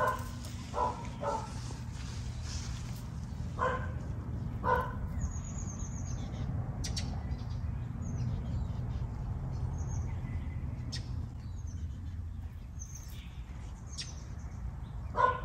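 A dog barks several times in the first five seconds. Small birds chirp through the rest, over a steady low hum.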